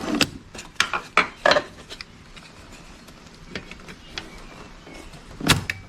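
Metal clicks and clatter of a portable jump starter's spring clamps being handled and clipped onto car battery terminals: a cluster of sharp clicks in the first two seconds, then a few more near the end.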